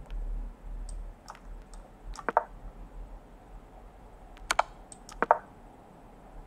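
Short, sharp clicks as moves are played in a fast online chess game: three louder clicks about two, four and a half and five seconds in, with a few fainter ticks between them.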